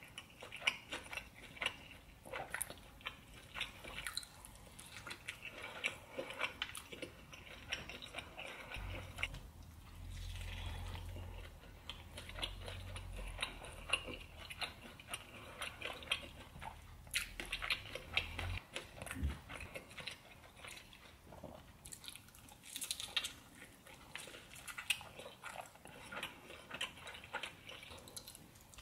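Mouth sounds of eating birria tacos dipped in consommé: wet chewing, bites and lip smacks coming in irregular clicks. A low hum runs underneath for about ten seconds in the middle.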